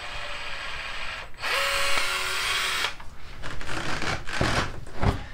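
Milwaukee cordless caulking gun motor whirring as it drives the plunger to squirt sealant from a cartridge. It runs in two short pushes, the second with a steady whine, then stops, followed by a couple of dull knocks near the end.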